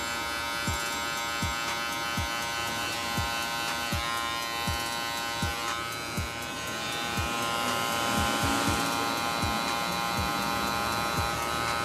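Cordless hair clipper buzzing steadily as it cuts short hair in a fade. A soft low thump recurs about every three-quarters of a second beneath the buzz.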